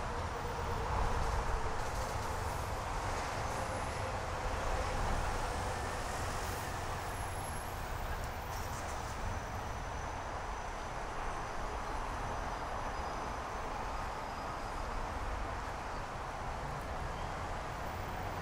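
Steady city street ambience: a continuous rumble and hiss of passing traffic, at an even level throughout.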